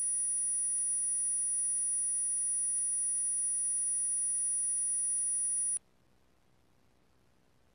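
Electronic tone made of several steady high pitches, with a fast, even ticking at about five ticks a second. It cuts off abruptly about six seconds in, leaving near silence.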